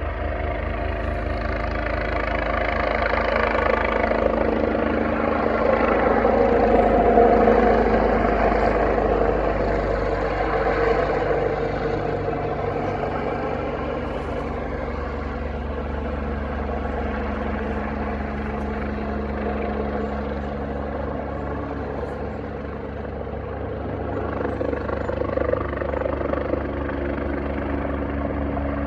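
Rescue helicopter circling low overhead, its rotor and engine noise growing louder to a peak about seven seconds in, easing off, then building again near the end.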